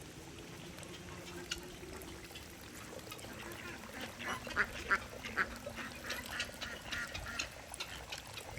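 Ducks quacking: a quick run of short calls that starts about three and a half seconds in and goes on to the end.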